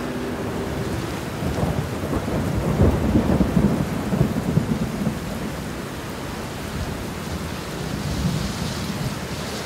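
Steady storm rain with a rolling rumble of thunder that builds about a second and a half in, is loudest around three seconds, and fades by about five seconds.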